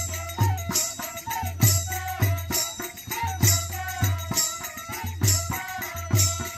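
Bodo Bagurumba folk-dance music: a double-headed barrel drum beats a steady rhythm under a wavering melody line, with some jingling.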